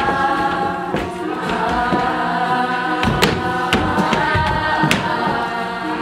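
Music with sustained choir-like singing, held notes throughout. A few sharp knocks cut through it, the clearest a little after three seconds and near five seconds in.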